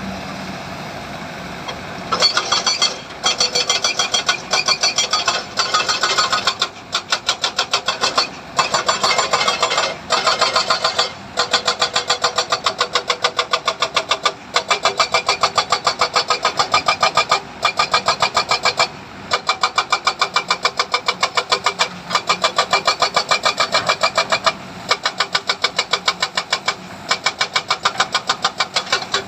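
Engine-driven machinery running with a fast, even pulsing chug. Short breaks come every few seconds.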